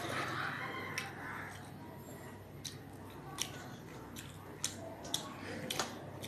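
A person eating rice and dal by hand: chewing and wet mouth sounds as fingers mix rice on a steel plate, with about eight short sharp clicks scattered through.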